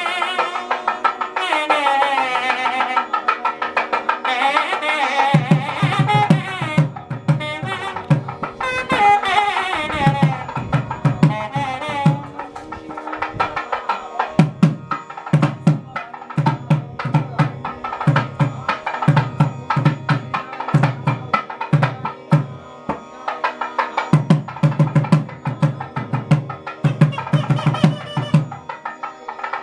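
South Indian temple music: a nadaswaram playing an ornamented, wavering melody over a steady drone and brisk thavil drumming. The reed melody fades after about twelve seconds, leaving mostly fast drum strokes and sharp slaps over the drone.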